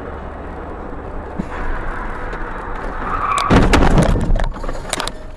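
Car driving with steady road noise, then losing grip and skidding. About three and a half seconds in comes a loud crash of the collision, followed by several sharp knocks.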